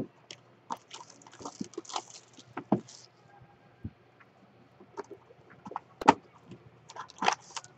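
A cardboard trading-card box being opened by hand, its packaging rustling and crinkling. Scattered sharp clicks and taps come throughout, with the densest rustling between about one and three seconds in and a sharp click about six seconds in.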